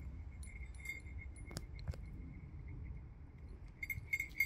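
Small metal clinks and jingles from a searching dog's collar and leash hardware, a few single clicks then a quick cluster near the end. Underneath, a faint steady high pulsing call goes on throughout.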